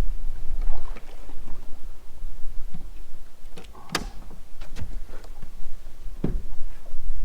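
Scattered knocks and clunks of fishing gear being handled against a small boat's hull, the sharpest about four seconds in, over a steady low rumble.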